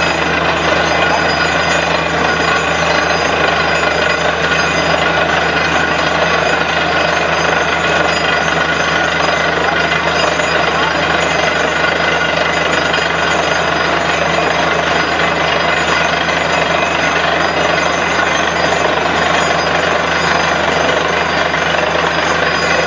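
Truck-mounted borewell drilling rig running steadily under load while drilling: the rig's engine and compressor drone with steady tones under a hammering rattle, as air blows water and slurry out of the borehole.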